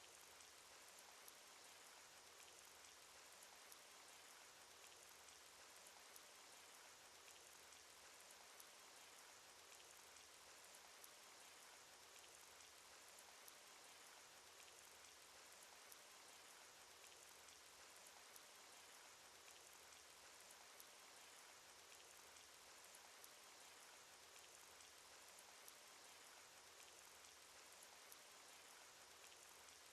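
Cartoon rain sound effect: a faint, steady patter of rain with fine drop ticks, and a slightly louder drop about every two and a half seconds.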